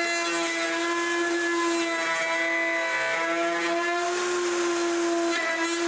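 Plunge router running at steady speed as it cuts a notch into plywood, a constant high whine with a few slight dips as the bit takes the wood.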